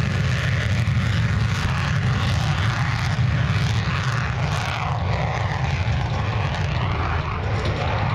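Jet aircraft engine running at high power during a takeoff run: a steady, heavy rumble with a hiss above it.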